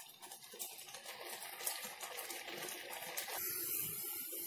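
Carrot halwa mixture of milk, cream and sugar syrup sizzling and bubbling in a kadhai on high flame as it reduces, with a few light spatula scrapes in the first three seconds. The hiss turns steadier and brighter about three and a half seconds in.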